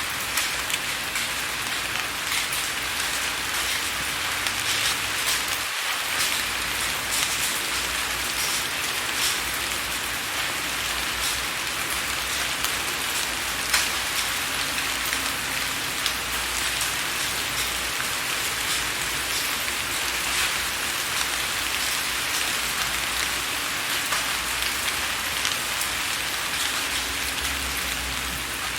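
Steady rain, with many drops tapping on window glass over a constant hiss.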